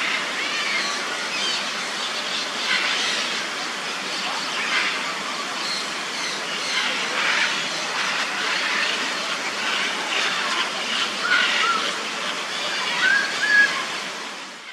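Steady rushing, hissing noise, like falling water, with short high chirps and whistles over it. The calls come more often and more brightly near the end.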